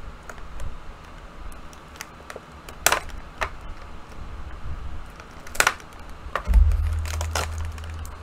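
Small hard-plastic clicks and taps as action-figure accessories are handled, with a louder click about three seconds in and another near the middle. About two-thirds of the way through comes a low bump, followed by a low rumble.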